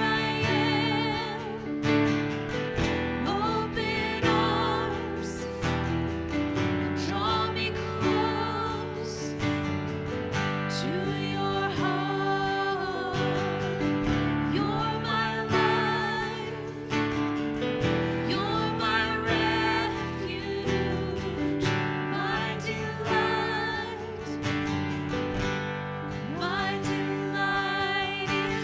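Worship music: sustained chords with guitar, and a voice singing a slow melody with vibrato but no clear words.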